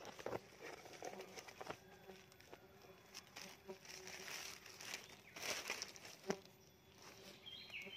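Plastic sheeting crinkling and rustling in irregular crackles as it is spread over an open wooden stingless-bee box. A short bird chirp comes near the end.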